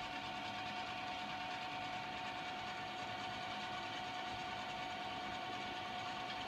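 Computer speakers putting out a steady mechanical-sounding drone with no audio playing, like a car engine that won't start crossed with a sewing machine running. It has a strong, steady mid-pitched tone with a buzz on top. The owner takes it for a fault in the speakers.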